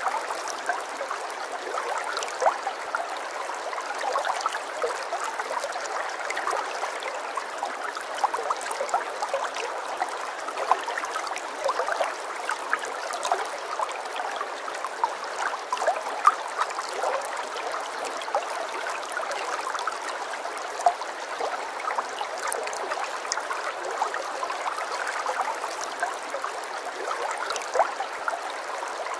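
Running water: a steady, trickling stream with many small splashes and drips throughout.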